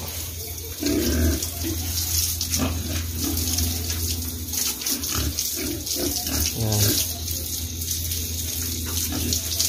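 Water spraying from a garden hose onto grower-stage fattener pigs and the wet concrete floor of their pen, a steady hiss throughout. The pigs grunt now and then.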